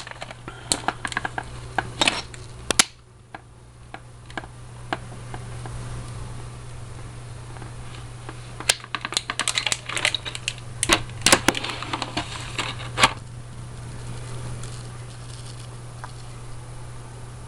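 Sharp clicks and rattles of small tools and their hard plastic case being handled, in two bursts: one in the first few seconds, a longer one from about 8 to 13 seconds in. A steady low hum runs underneath.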